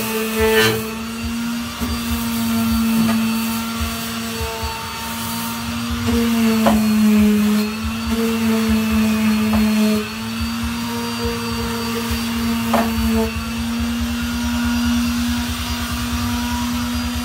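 Handheld electric power sander running steadily, sanding rust off a steel truck step rail; its motor pitch sags as it is pressed harder into the metal about six to eight seconds in, then recovers, with a few sharp clicks along the way.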